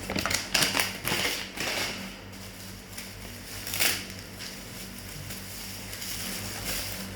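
Packaging being handled: a few short bursts of crinkling and rustling in the first two seconds and once more about four seconds in, over a steady low electrical hum.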